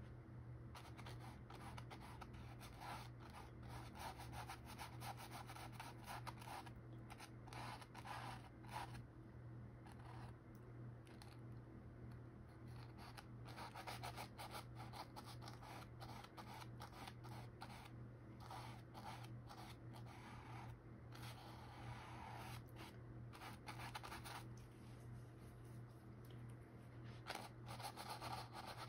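Paintbrush strokes scratching and rubbing on a canvas in short, irregular spells, faint, over a steady low hum.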